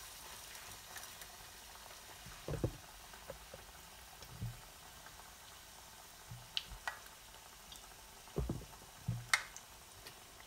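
Batter-coated green chillies (mirchi bajji) deep-frying in hot oil in a steel kadai: a steady bubbling sizzle, with a few soft knocks and sharp clicks along the way.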